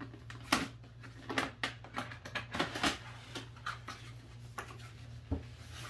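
Cardboard retail box being opened by hand: an irregular string of short scrapes, clicks and rustles of cardboard as the top is worked loose and the lid lifted open.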